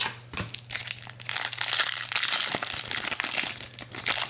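A trading card pack's foil wrapper crinkling and tearing as it is opened, a dense crackle that starts about a second in.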